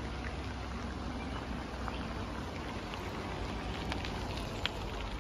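Steady outdoor street ambience: an even hiss over a low rumble, with a few faint short high ticks or chirps about four seconds in.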